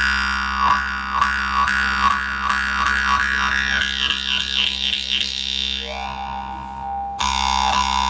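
Khomus (Yakut jaw harp) playing a steady drone, plucked about twice a second, its overtones sweeping up and back down mid-phrase, with a fresh, louder stroke about seven seconds in.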